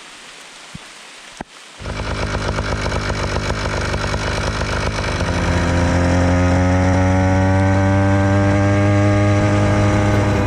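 A small two-stroke motorized-bicycle engine starts suddenly about two seconds in after a faint hiss. It runs with a fast buzzing pulse, and its pitch climbs steadily over the last few seconds as it speeds up.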